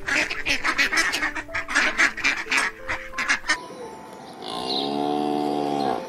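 A flock of ducks quacking quickly over one another for about three and a half seconds, then a cow mooing once, long and drawn out, near the end.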